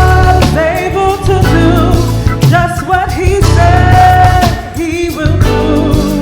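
Gospel singers with instrumental backing, holding long sung notes over a strong bass line and drums.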